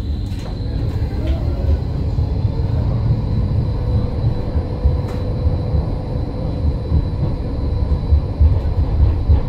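Electric tram running on street rails, a continuous low rumble of wheels on track with a steady whine over it.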